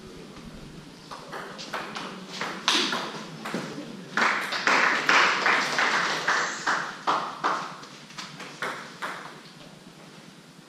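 Table tennis rally: the ball clicking off the rackets and the table at about two to three hits a second, loudest and busiest in the middle.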